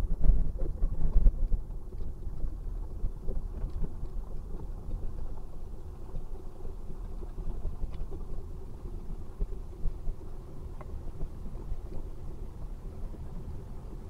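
Low, steady rumble of road and drivetrain noise heard from inside a Toyota Vellfire's cabin as it drives at city-traffic speed, a little louder for about the first second and a half.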